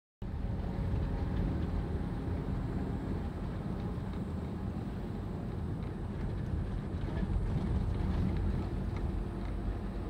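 Steady low rumble of a vehicle running, heard from inside the cab.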